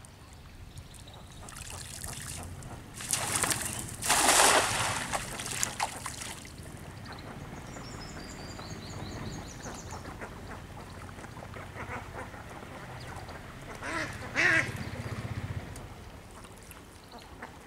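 A weighted cast net is flung and lands spread out on pond water, giving a hissing splash about three to six seconds in. A bird's short run of high chirps follows, and another brief splash-like burst comes near the end.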